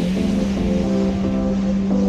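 Background electronic music: a steady held bass note under evenly pulsing synth chords.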